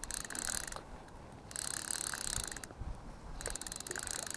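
Fly reel's click-and-pawl ratchet clicking rapidly in three spells as line is wound in while a hooked trout is played.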